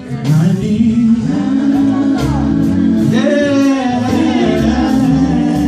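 Male gospel group singing, the voices amplified through microphones and a PA.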